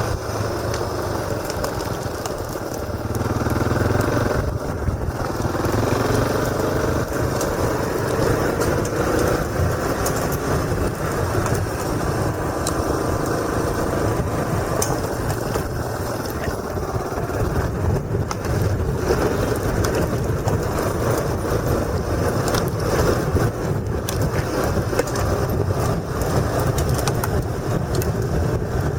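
Motorcycle engine running under way, picked up by a helmet-mounted camera, its pitch rising and falling a few seconds in as the rider works the throttle, over steady road noise with scattered small knocks.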